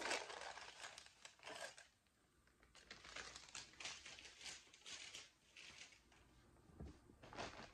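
Faint, on-and-off rustling of bags and wrapping as someone rummages through them, with a near-silent gap about two seconds in.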